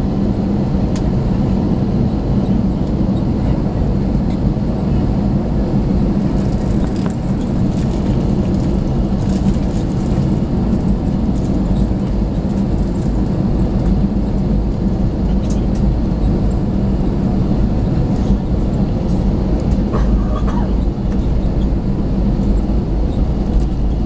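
Airbus A321 cabin noise: the jet engines' steady hum and a low rumble, unchanging in level, with a few light clicks or rattles in the middle.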